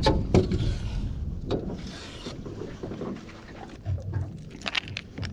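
Handling noises aboard a fishing boat: scattered knocks and clicks, with a cluster of sharp clicks near the end, a short hiss about two seconds in, and some wind on the microphone.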